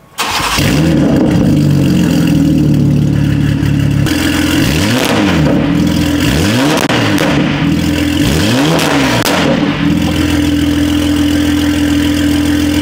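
BMW G80 M3's S58 twin-turbo inline-six, breathing through a full titanium exhaust with catless downpipes, fires up with a rising flare and holds a raised idle. Starting about four seconds in, it is revved three times, each rev rising and falling. It then settles to a steady idle.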